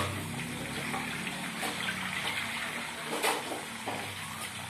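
Sweet potato chunks sizzling and crackling in hot frying oil as they are turned with a metal slotted skimmer, with a few short clinks of the skimmer against the pan, the clearest about three seconds in.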